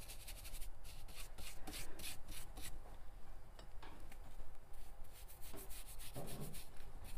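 Thick flat paintbrush scrubbing paint onto textured fabric in quick, scratchy back-and-forth strokes. The strokes pause for about a second partway through, then resume.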